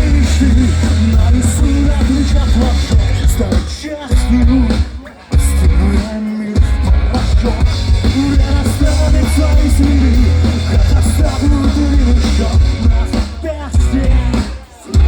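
Loud rock music from a band, with heavy bass and a repeating riff, broken by short stops about four, six and fourteen seconds in.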